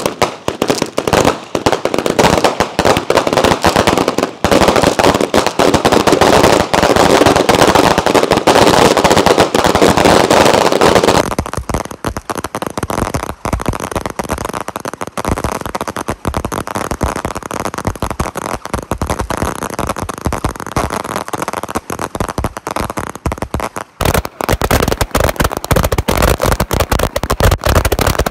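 A 300-shot barrage of Raccoon Fireworks Strobing Willow 200-gram cakes firing: a dense, unbroken stream of shots, pops and crackle. It is loudest for the first ten seconds or so, eases about eleven seconds in, and grows dense again for the last few seconds.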